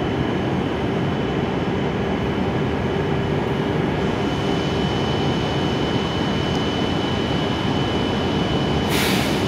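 Steady hum and whir of a stopped E7 series Hokuriku Shinkansen's onboard equipment as it stands at the platform, with a thin steady high whine over it. A short hiss comes near the end.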